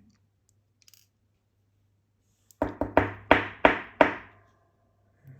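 Five sharp knocks in quick succession, about three a second, each ringing briefly: hard metal lock parts rapped against a work surface while a pin-tumbler cylinder is re-pinned. A faint click about a second in.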